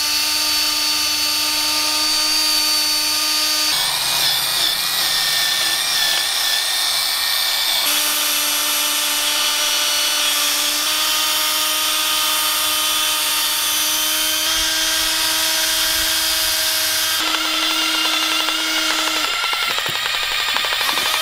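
A cordless drill spins a nylon scrub brush against a Honda B18B1 engine block to clean it. The motor whines steadily over the scrubbing of the brush, and its pitch and tone shift abruptly several times.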